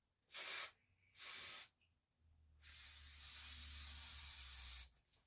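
Aerosol hairspray: two short sprays, then one longer spray of about two and a half seconds.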